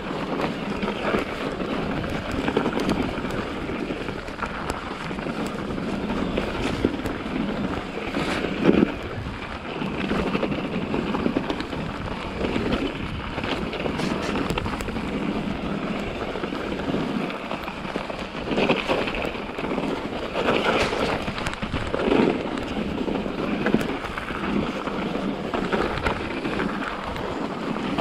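Mountain bike being ridden fast over a snowy, rooty forest trail: a steady rush of tyre noise and wind on the camera microphone, with several sharp knocks and rattles from the bike over bumps.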